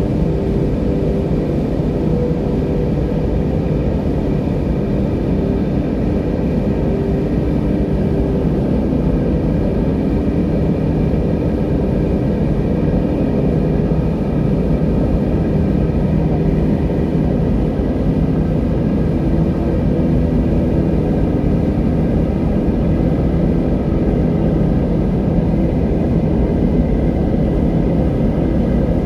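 River water rushing, a steady deep noise that holds even throughout.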